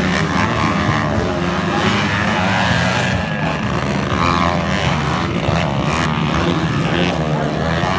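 Several motocross dirt bikes riding the track, their engines revving up and down as the riders work the throttle through the turns.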